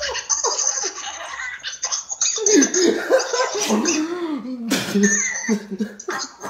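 Two men laughing hard in repeated bursts, loudest about halfway through.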